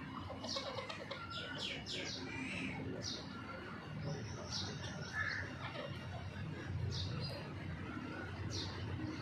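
Game-bird chicks peeping: short, high peeps that fall in pitch, coming every second or so, with a few soft, lower calls from the adult hens.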